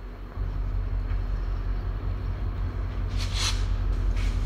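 Low, steady rumble of an approaching diesel locomotive, with a short hiss about three seconds in.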